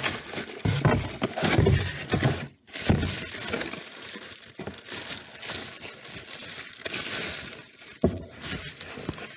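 Close handling noise: continuous rustling and crackling with many knocks and clatters, as the camera is picked up and moved and packaging is handled.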